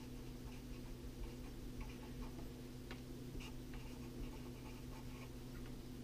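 Marker pen writing on paper: faint, irregular scratches and small taps of the tip as words are lettered, over a steady low electrical hum.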